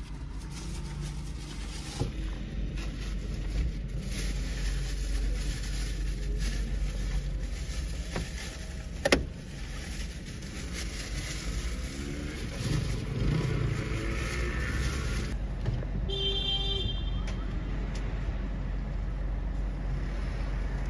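Steady low road and engine rumble heard from inside a moving car in city traffic. There is a single sharp click about nine seconds in, and a short high tone, like a horn beep, at about sixteen seconds.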